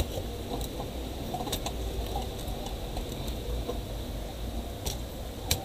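A laptop motherboard being set into its plastic bottom case and fitted by hand: scattered light clicks and knocks of circuit board against plastic, the sharpest near the end, over a steady low rumble.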